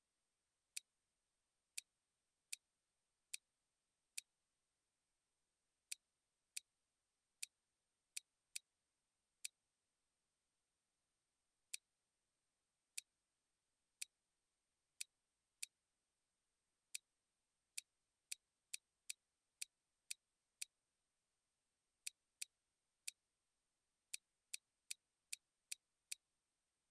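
Faint, sharp computer mouse-button clicks, about thirty of them at irregular intervals, sometimes in quick runs of two or three a second, over a faint steady high-pitched whine.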